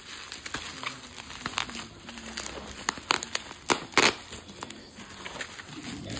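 Plastic bubble wrap being handled and unwrapped by hand, crinkling and rustling, with a cluster of sharp crackles about three to four seconds in.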